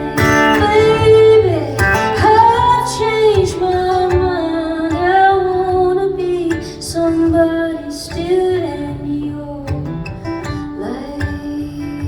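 A woman singing live over guitar accompaniment.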